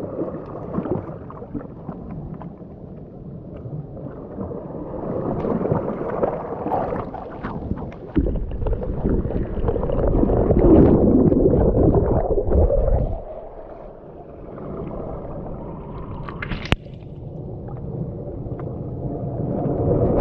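Seawater surging and gurgling around shoreline rocks while mussels are picked by hand, with a heavy muffled rumble midway while the microphone is under water. A single sharp knock near the end.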